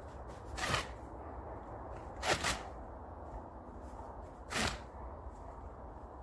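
A hand blade cutting strokes into a piece of firewood, splitting off kindling: four short scraping strokes, one near the start, a quick pair about two seconds in and one more a couple of seconds later, over a steady low rumble.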